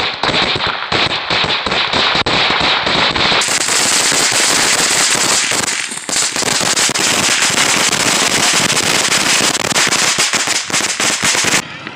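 Ground fountain fireworks spraying sparks: a loud, dense crackling hiss that runs on without a break and stops shortly before the end.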